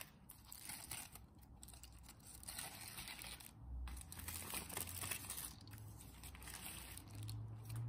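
Aluminium foil crinkling and rustling irregularly as a crumpled foil parcel is pulled open by hand.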